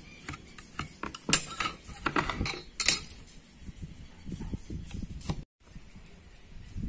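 Light clicks and knocks of a metal ruler being laid down and shifted on a wooden pallet board while a line is marked, the two loudest about a second and a half and three seconds in.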